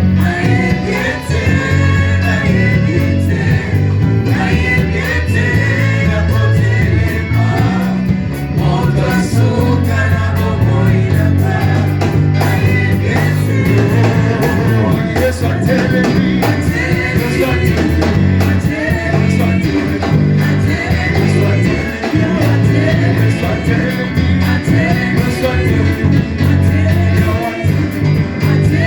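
Gospel worship music in a church: voices singing over an amplified band with a prominent bass line, loud and continuous.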